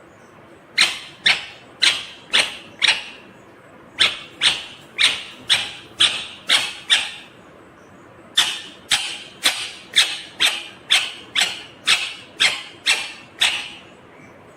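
Indian ringneck parakeet calling in three runs of short, sharp, high-pitched calls, about two a second: five, then seven, then eleven.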